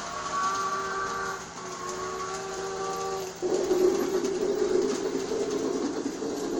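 G-scale toy steam train set sounding two steam-whistle blasts, each a chord of several steady tones, with a short break between them, over the first three seconds or so. The train's steady rumbling running noise then picks back up.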